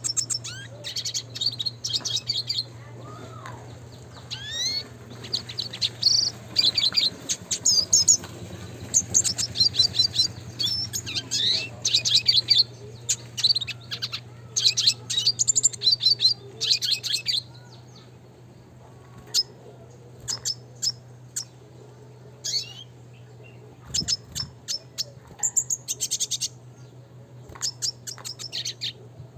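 Red siskin (Spinus cucullatus) singing: a fast, busy twittering song of rapid trills and sharp notes for most of the first seventeen seconds, then thinning to scattered short chirps. A steady low hum runs underneath.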